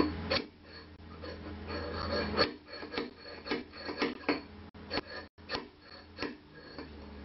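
A thin steel hand tool scraping and knocking against a painted sheet-metal housing, giving irregular short scrapes and clicks. A low hum underneath stops about two and a half seconds in.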